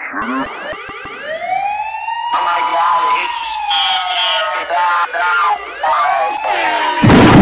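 A siren wailing, several overlapping tones sweeping slowly up and down in pitch. A loud burst of music cuts in near the end.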